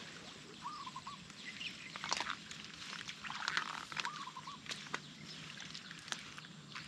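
Quiet splashing and sloshing of hands working in shallow paddy water, pulling a hooked fish off a set hook line. A short animal call of about three quick notes sounds twice, about a second in and again past the middle.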